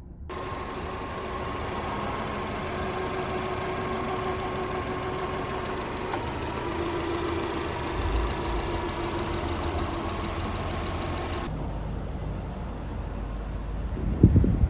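Subaru EJ20 turbocharged flat-four engine idling steadily, with a few loud low thumps near the end.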